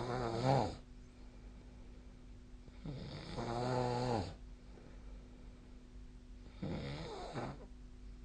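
A sleeping person snoring, one snore about every three seconds. The first trails off just after the start, a longer one comes about three seconds in, and a shorter one comes near the end. A faint steady hum sits underneath.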